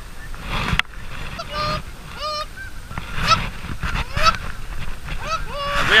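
Geese honking: a series of short calls, each rising in pitch, coming thicker and louder toward the end.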